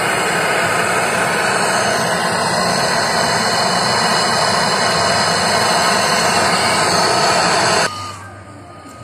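Brazing torch flame hissing steadily while brazing a copper tube joint on a refrigerator's new filter drier. The hiss drops away sharply near the end as the flame is turned down.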